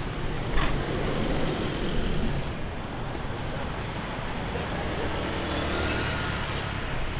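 City street ambience: steady traffic noise, with a short sharp knock about half a second in.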